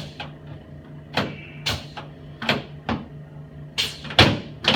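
A series of about seven sharp clicks, irregularly spaced, as a chiropractor adjusts a supine patient's costosternal and sternoclavicular joints.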